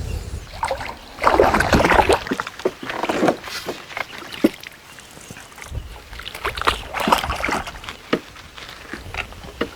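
Water splashing and sloshing in irregular bursts as a hooked fish thrashes at the surface while it is brought in.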